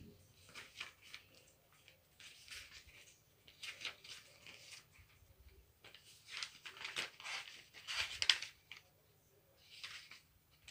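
Paper pages of a handmade junk journal being turned by hand: a run of dry rustles and flaps, several in a row, the loudest about seven to eight seconds in.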